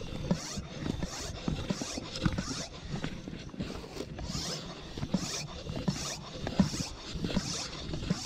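Hand-operated stirrup pump inflating a rubber inner tube, pumped steadily at about two strokes a second; each stroke is a hiss of air with a low thump.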